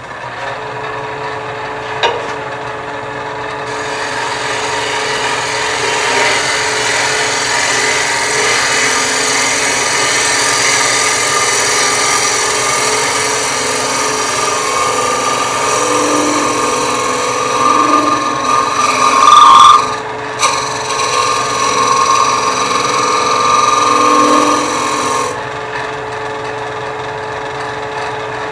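Bowl scraper taking a slow, light finishing cut across the inside of a wooden bowl spinning on a lathe: a steady scraping hiss with a few louder swells. The scraper cuts on a freshly raised burr to take off tool marks and irregularities. The cut stops abruptly about 25 seconds in, leaving the lathe running.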